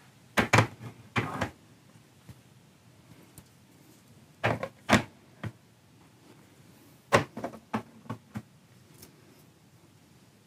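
Wooden-handled chisels being set one at a time into a clear acrylic wall rack: scattered short knocks and clicks against the rack, coming in several small clusters with quiet gaps between.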